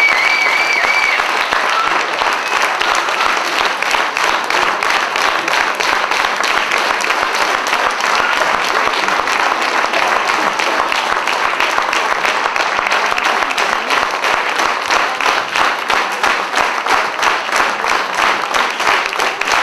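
An audience of schoolchildren applauding. Near the end the clapping falls into a steady rhythm together.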